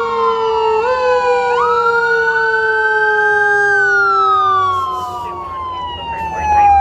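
Several emergency-vehicle sirens wailing at once, their slow rising and falling tones overlapping out of step.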